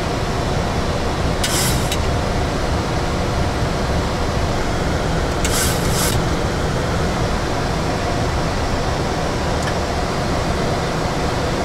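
Steady cockpit noise of a Boeing 737 NG climbing at climb thrust: an even rush of air and air-conditioning flow with a faint engine hum beneath. Two brief hisses come about a second and a half in and again around five and a half seconds in.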